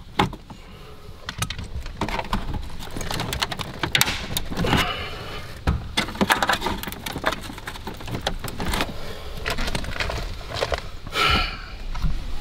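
Hands and pliers working behind a pickup's opened dashboard: irregular clicks, knocks and rattles of plastic dash parts and wiring.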